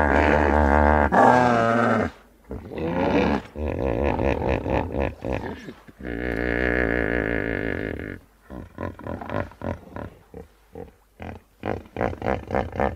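Hippopotamus calling: long, deep honking calls with a wavering pitch, the first at the start and another about six seconds in, then from about eight seconds in a run of short, rhythmic grunts.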